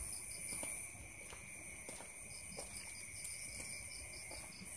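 Crickets and other night insects: a steady shrill trilling, with a rapid pulsed chirp repeating several times a second. Faint scattered knocks and rustles sound over it.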